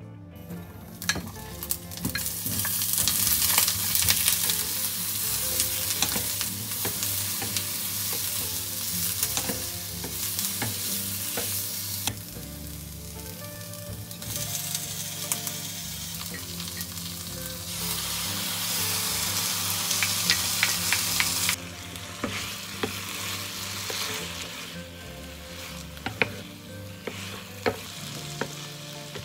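Eggplant and green pepper sizzling as they are stir-fried in sesame oil in a nonstick frying pan, with a spatula clicking and scraping against the pan. The chicken pieces are then tossed in with them. The sizzle swells and drops a few times and turns quieter about three-quarters of the way through.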